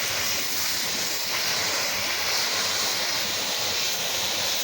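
Pressure washer spraying cleaning chemical onto a surface: a steady, even hiss.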